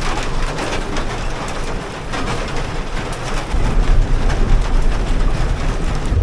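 Heavy rain pelting down on and around the armored vehicle: a dense steady hiss full of sharp drop impacts. A deeper rumble swells louder about halfway through.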